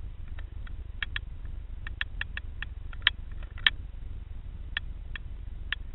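Underwater recording: irregular sharp clicks and ticks, about twenty, the two loudest about three seconds in, over a steady low rumble.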